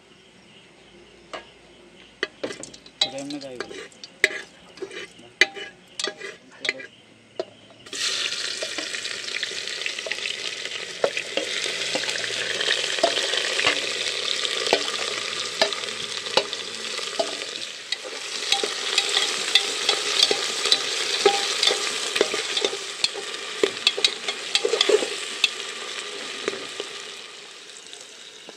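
Hot oil in an aluminium cooking pot, with light scattered pops and crackles at first. About eight seconds in, a loud sizzle starts suddenly as sliced onions fry. A ladle scrapes and clinks against the pot as it stirs them, and the sizzle eases near the end.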